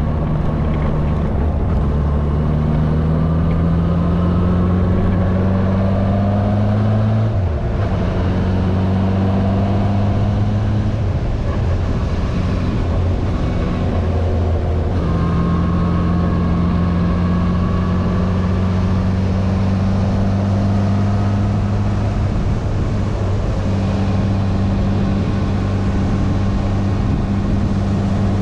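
Yamaha inline-four motorcycle engine running under way, its note rising over the first seven seconds and then dropping with an upshift. The note breaks again near fifteen seconds in, and the engine runs at a steady pitch for the rest.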